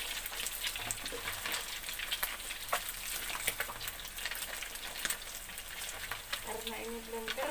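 Whole catfish frying in hot oil in a steel wok, a dense, steady sizzle with many sharp crackles, while a metal spatula stirs and turns the fish in the pan.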